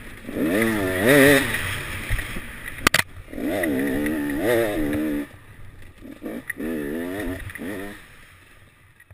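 Enduro motorcycle engine revving hard in repeated rising and falling surges as the rider works the throttle and gears, heard from an onboard camera, with a sharp knock about three seconds in. The sound fades out near the end.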